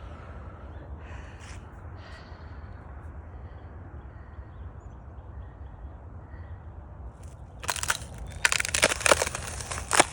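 Thin spring ice crackling and crunching underfoot as someone steps onto it. It begins near the end with a dense run of sharp cracks, after a stretch of low, steady background noise.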